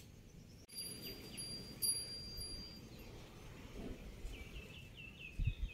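Outdoor rural ambience. A faint high ringing tone starts about a second in and fades out by about three seconds. Near the end a bird chirps a quick run of repeated notes.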